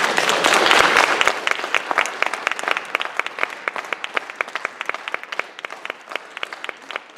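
Audience applauding: a dense burst of clapping that thins out into more scattered, separate claps.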